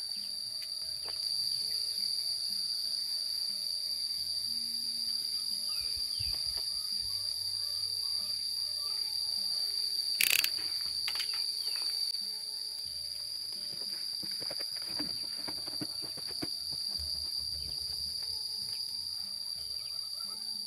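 Insects, likely cicadas or crickets, keep up a steady high-pitched drone throughout. A single sharp click comes about halfway through.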